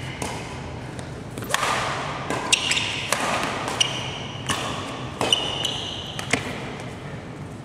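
Badminton racket strikes on shuttlecocks, about six sharp cracks spread a second or so apart, with court shoes squeaking briefly on the floor and quick footsteps as the player moves between shots.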